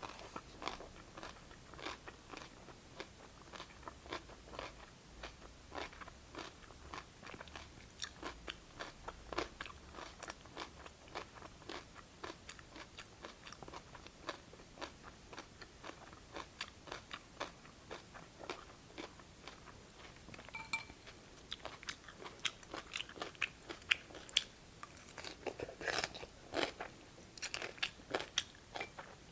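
Close-miked chewing of crisp cucumber from cold cucumber soup: a steady run of wet crunches, a few each second, getting a little louder and busier near the end.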